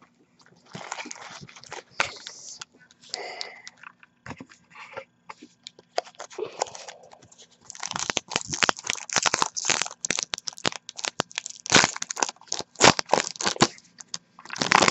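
A foil hockey trading-card pack and its cards being handled: the wrapper crinkles and crackles while the cards click against each other. It is sparse at first and becomes a dense run of crackling about eight seconds in.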